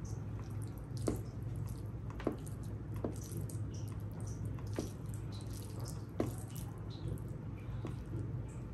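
Close, wet, squelchy eating sounds of rice and curry, with about five sharp wet smacks spaced a second or so apart.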